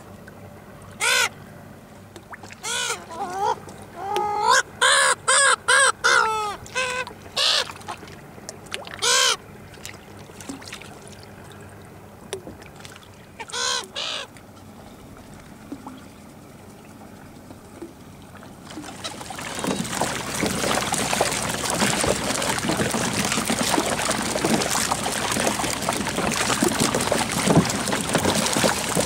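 Gulls calling in a series of harsh cries, thickest a few seconds in and ending about halfway. About two-thirds of the way in, steady water splashing starts and becomes the loudest sound.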